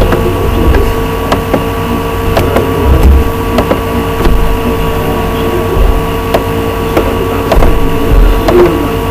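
A steady hum with a constant tone and a low rumble, with short sharp clicks at irregular intervals, typical of computer mouse clicks.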